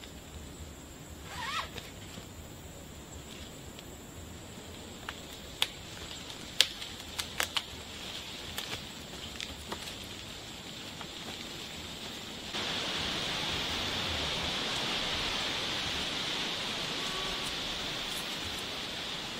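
Quiet forest background with a steady high-pitched whine and a scattered run of sharp clicks and knocks. About two-thirds of the way through it gives way suddenly to the louder, even hiss of heavy rain.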